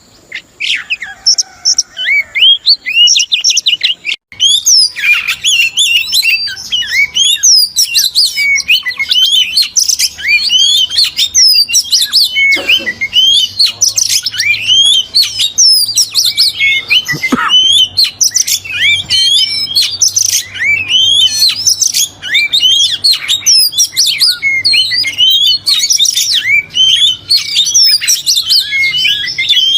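Female oriental magpie-robin singing: a dense, rapid run of chirps and gliding whistles that starts about a second in and goes on without pause. It is the kind of female song that keepers play to rouse a male into singing.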